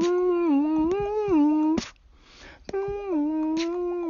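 A person humming a slow, wavering tune in one steady voice. It breaks off briefly about two seconds in with a soft intake of breath, then carries on. Faint clicks and taps sound here and there.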